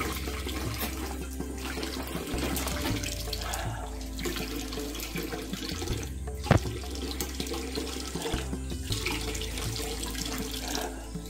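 Spring water running from a pipe spout into a half-full plastic drum: a steady splashing stream. There is a single sharp knock about six and a half seconds in.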